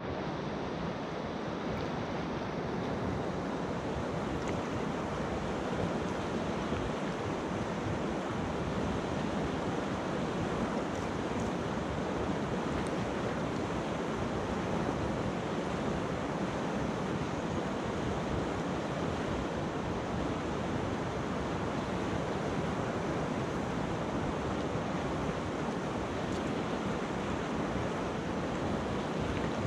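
River water rushing steadily over a pebble bed, an even, unbroken rush.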